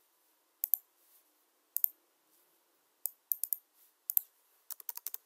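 Computer mouse clicks and keyboard keys: a few separate clicks about a second apart, then a quick run of keystrokes near the end.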